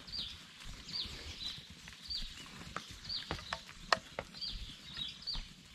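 Footsteps shuffling and crunching on dry leaf litter, with a few sharp twig snaps about three to four seconds in. A small bird repeats short, high chirps that fall in pitch.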